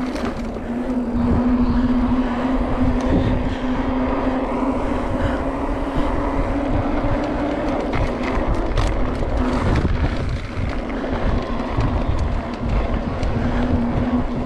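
Mountain bike riding heard from a helmet camera: wind buffets the microphone and the tyres rattle over the track, with a steady hum running underneath and scattered small clicks.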